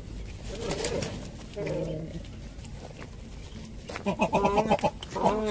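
Fishing cormorants calling, with a few scattered calls and then a louder run of wavering calls about four seconds in.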